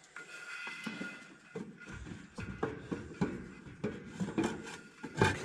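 Light irregular knocks, clicks and scrapes of a heavy metal mount and pieces of lumber being shifted and wedged into place by hand, with a louder clatter about five seconds in.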